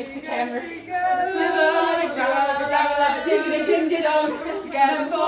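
Several people's voices singing together loudly, with held, wavering notes.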